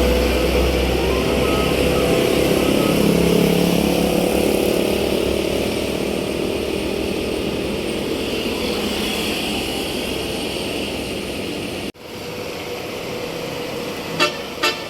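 A bus's engine drone passing close by, slowly fading as it moves away, then cut off abruptly about twelve seconds in. Near the end, short toots of a multi-tone telolet bus horn begin.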